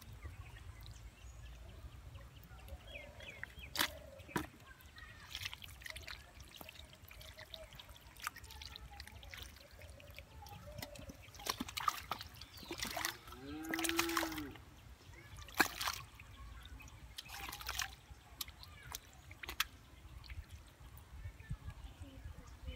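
Muddy water sloshing and splashing as hands and a metal bowl scoop and push through a shallow puddle, with scattered trickles and short splashes. A brief rising-and-falling call sounds about two-thirds of the way through.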